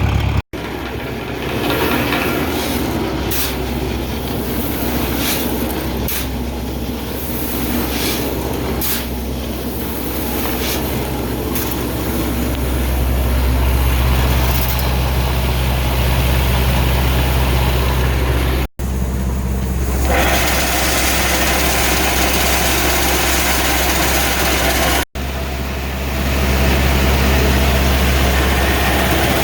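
Farm tractor engine running steadily with a strong low hum, heard across several clips joined by abrupt cuts.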